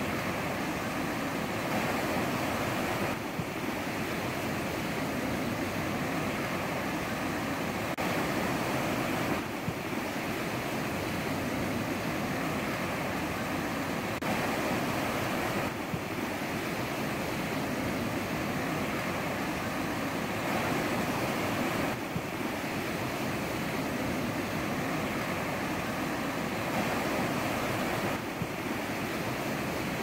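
Ocean surf washing onto a shore in a continuous rushing, swelling slightly about every six seconds.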